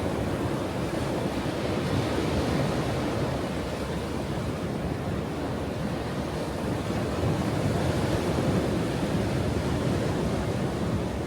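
Ocean waves washing onto a shore: a steady rush of surf that swells gently a couple of seconds in and again in the second half.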